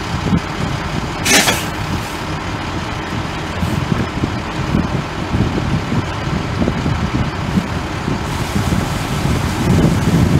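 Fire truck diesel engines running steadily, with a brief sharp hiss about a second in. Near the end, water starts gushing from the tanker's rear dump valve into the portable folding dump tank.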